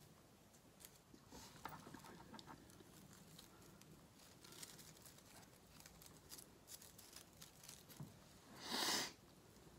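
Faint rustling and small clicks of satin ribbon and flower greenery being handled while a ribbon bow is worked onto a wrist corsage. A louder, brief swish of ribbon comes about a second before the end.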